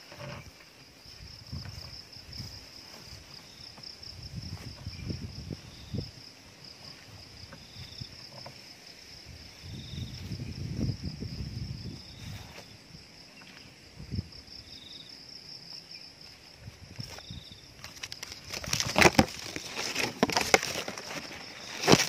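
A camera tied to a bamboo pole being raised into a mango tree: low handling bumps and rumbles from the pole, then loud rustling and scraping of leaves and twigs against the camera near the end. Under it runs a steady high pulsing drone of insects, with a short higher note repeating every two seconds or so.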